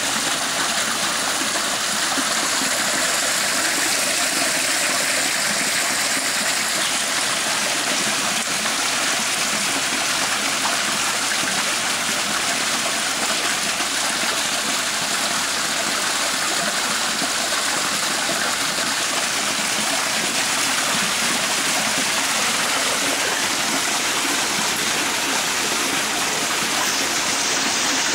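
Floodwater rushing steadily, a continuous even wash of running water.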